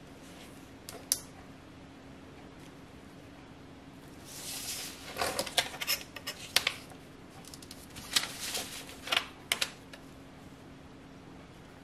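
A ruler sliding and clicking on a painted barn quilt board, with the taps of a marker making tick marks. A scrape around four seconds in, then clusters of light clicks and knocks.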